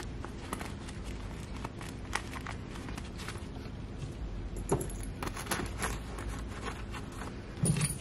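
Small metal tools clicking and clinking against each other and the workbench, with light rubbing of leather and waxed canvas, as they are handled and slid back into the pockets of a leather tool pouch. A brief low bump near the end.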